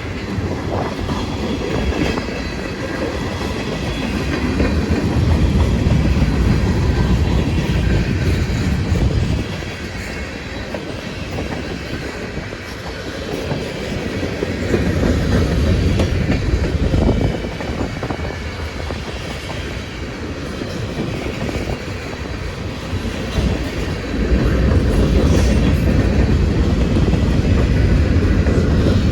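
CSX manifest freight train's cars rolling past on the rails: a continuous rumble with the clickety-clack of wheels over rail joints, growing louder and softer several times as the cars go by.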